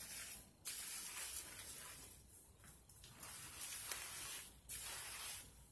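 Fingers scrubbing shampoo lather through wet hair: a wet, squishing rub that stops briefly a few times.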